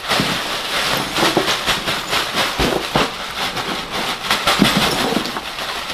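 Ice cubes tipped out of a torn bag, clattering into a styrofoam cooler in a long run of clicks, over a steady rushing noise.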